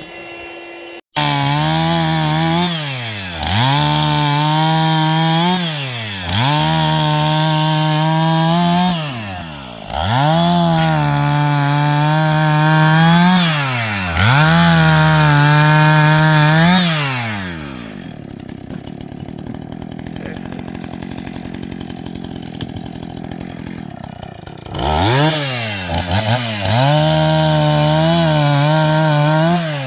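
Two-stroke chainsaw run up to full throttle in repeated bursts of a few seconds, each dropping back between, with about six seconds of low idle past the middle before it revs up again.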